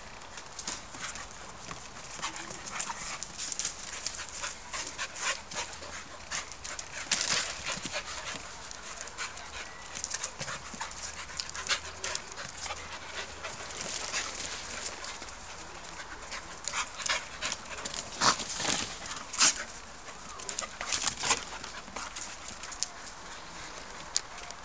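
An Irish terrier and a Labrador puppy playing on paving slabs: a busy run of quick scuffling clicks from claws and paws, with a few louder sharp dog sounds, most of them in the second half.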